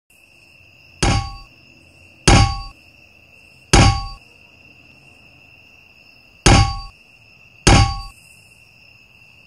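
Five metallic clanks, each ringing briefly, as a desk lamp's metal base hops and lands on a desk, the hops spaced about one to three seconds apart. A steady high, thin trill sounds underneath throughout.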